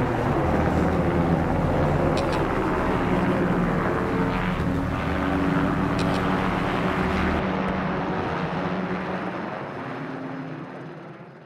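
Turbine-powered Enstrom helicopter flying past, its rotor and engine running steadily, fading out over the last few seconds.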